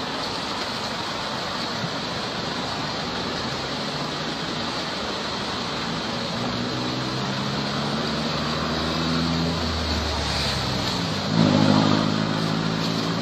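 Steady road-traffic noise with a vehicle engine passing, its pitch rising slowly over several seconds, and a louder engine sound near the end.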